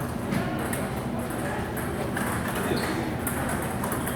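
Table tennis balls clicking off rubber bats and the table, a string of sharp ticks at irregular intervals over steady background hubbub.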